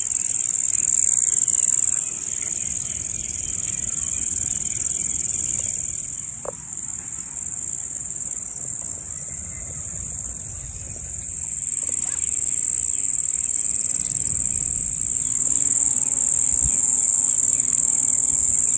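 Crickets trilling in the grass at dusk: a loud, steady, high-pitched drone, like radio sounds. About six seconds in, the drone dips for a few seconds and a pulsing chirp of about three beats a second stands out, before the drone swells back.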